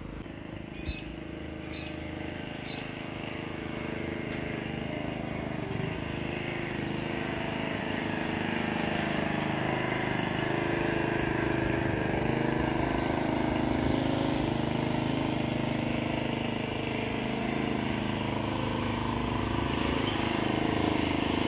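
Walk-behind lawn mower engine running steadily, growing gradually louder as the mower is pushed closer along the grass.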